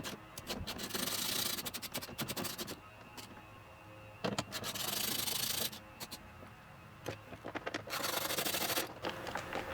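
Hand ratchet with a 10mm socket clicking rapidly as bolts are backed out, in three separate runs with short pauses between.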